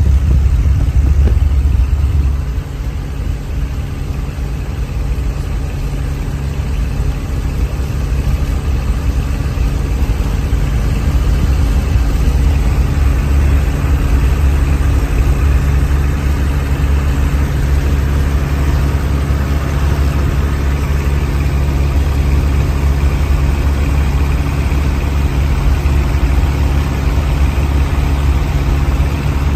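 Steady drone of a Piper J-3 Cub's engine and propeller in level flight, heard from on board with a rush of air over it. The level dips slightly about two seconds in, then holds steady.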